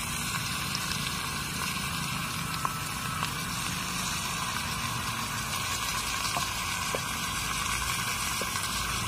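Wood ear mushrooms sizzling in a frying pan: a steady hiss with a few faint ticks.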